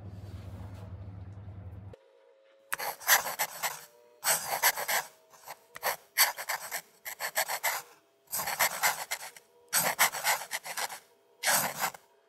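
Basil leaves rustling as they are picked off the plant by hand, in about seven short scratchy bursts.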